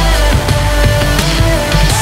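Electronic dance music with a heavy bass beat and regular drum hits.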